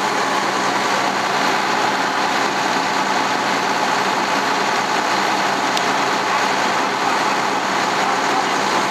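An engine on firefighting equipment running steadily: a loud, even drone with a wide hiss over it and no change in pitch.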